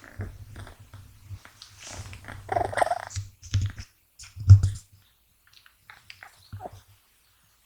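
Sleeping American Shorthair kitten snoring: an uneven low rumble with breathy rasps, loudest about four and a half seconds in, then fading to faint breaths.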